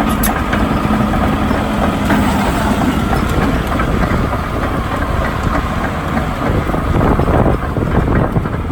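Volvo EC180 crawler excavator's diesel engine running steadily.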